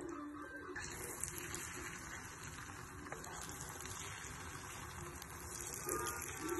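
Beaten egg mixture sizzling in melted butter in a frying pan as it is stirred with a wooden spatula: a steady hiss that comes up about a second in.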